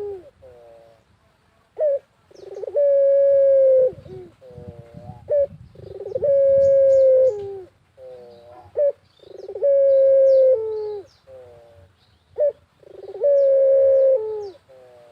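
A puter (Barbary dove) cooing: four long, level coos of about a second each, roughly every three and a half seconds, with shorter notes in between, the coos being the loudest sounds.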